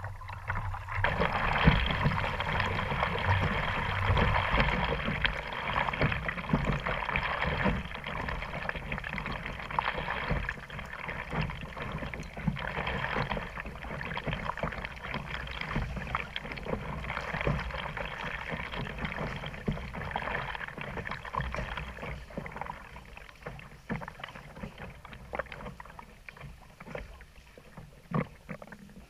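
Seawater lapping and sloshing around a kayak hull inside a rock sea cave, a dense patter of small splashes and clicks. It starts about a second in and slowly fades.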